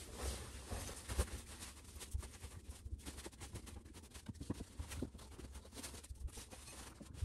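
Bed sheet rustling and crackling as it is spread over a single mattress and its corners are tucked in, with many short sharp crinkles.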